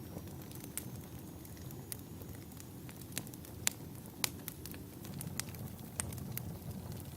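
Wood logs burning in a fireplace: a steady low rumble of flames with irregular sharp crackles and pops, two louder pops near the middle.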